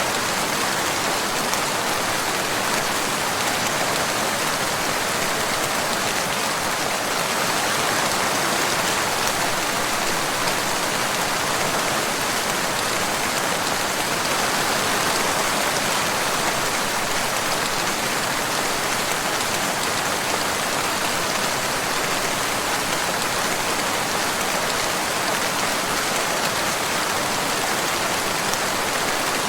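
Steady rain falling, an even constant hiss that does not let up or change.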